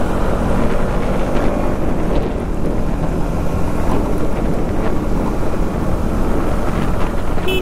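Pulsar NS200's single-cylinder engine running steadily at road speed, mixed with heavy wind noise buffeting the microphone.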